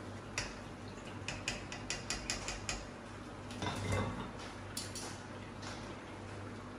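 Metal kitchen tongs clicking and tapping against a wire skimmer and a frying pan while fried pieces are lifted out of the oil: a quick run of sharp clicks, then a louder scraping clatter about four seconds in, and a few lighter ticks after.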